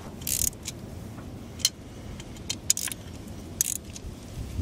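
Light metallic clinks and jingles of a hand tool and small mounting hardware against a glow plug relay's steel bracket, about six irregular taps, while the relay is being fitted.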